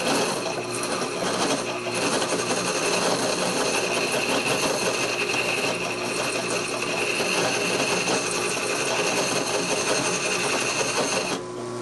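A heavy rasp scraping oak discs clamped on a spinning threaded-rod rig, a dense rough rasping over a steady motor hum. The discs are being trued up. The sound stops suddenly near the end.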